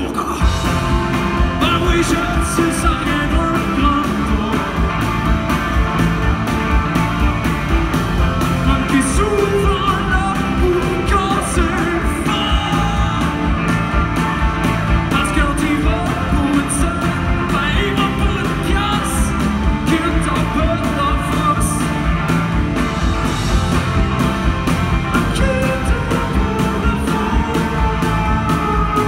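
Live rock band playing, with electric guitars and a steady drum beat under a man singing.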